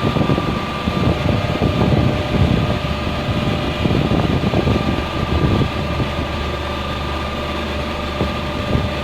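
Steady mechanical hum with two held tones over a low drone: an air conditioner's outdoor unit running. Irregular low rumbles come and go through the first six seconds or so.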